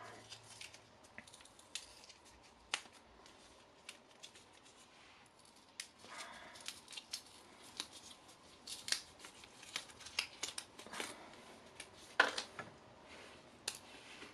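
Small cardboard and paper packaging of an Apple Lightning cable being opened and handled by hand: faint scattered clicks and taps with short paper rustles, the sharpest click about twelve seconds in.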